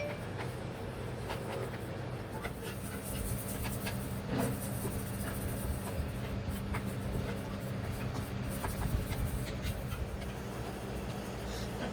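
Steady low mechanical hum with scattered light clicks and scrapes.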